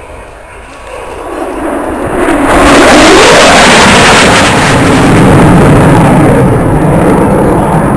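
Lockheed Martin F-22 Raptor's twin Pratt & Whitney F119 turbofans passing in a display flight. The jet noise swells over about two seconds to a loud, rough roar that holds, with a tone in it that dips and then rises again in pitch as the jet goes by.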